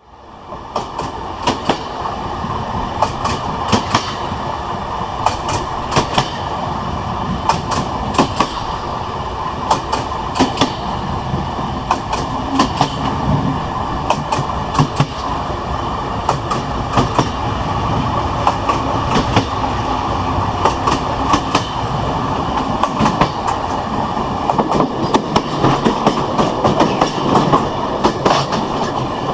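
Passenger train running along the track with a steady rumble. Its wheels clack over the rail joints in pairs and small groups of sharp clicks every second or two.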